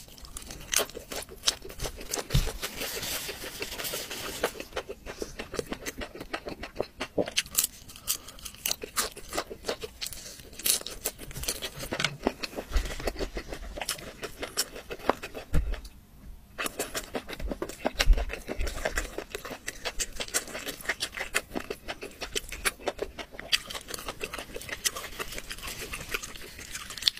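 Close-miked eating of a whole roast chicken: chewing, biting and tearing the meat apart, heard as dense, irregular wet clicks and crackles with a few dull thumps.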